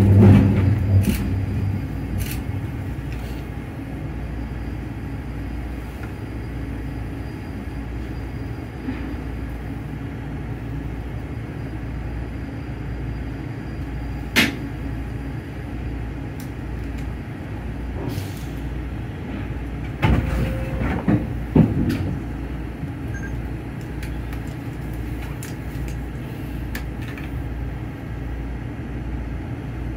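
Inside a Skyrail suspended people-mover car: it rumbles to a stop at a station platform over the first few seconds, then stands with a steady low hum. There is one sharp click about halfway through and a short run of knocks and clunks about two-thirds of the way through.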